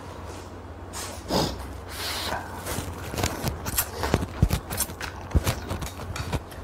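Instant noodles being slurped and chewed close to the microphone: a couple of slurps about a second in, then a run of quick wet clicks and smacks of chewing. A steady low hum runs underneath.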